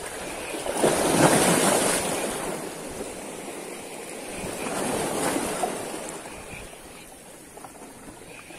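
Waves washing on the estuary shore: an even rush of surf noise that swells twice, about a second in and again around five seconds, then eases off.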